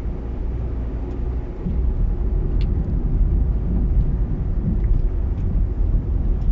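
Steady low rumble of a car driving along a road, engine and tyre noise heard from inside the moving vehicle.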